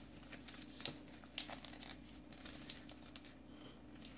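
Faint rustling and crinkling of origami paper being folded and creased by hand, with a few light ticks.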